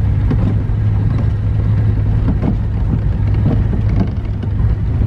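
Vehicle driving at a steady pace: a constant low engine and road drone, with irregular knocks and rattles scattered throughout.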